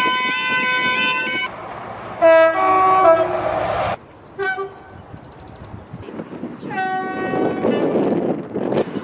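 Train two-tone horns in a series of short clips: a quick run of alternating notes, then a loud two-note blast over the rumble of a moving train about two seconds in. The sound cuts off suddenly halfway through, followed by brief toots, another horn note and the noise of a train approaching near the end.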